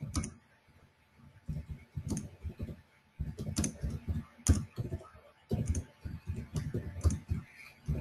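Computer keyboard typing and clicking in irregular bursts, with dull knocks from the desk between short quiet gaps.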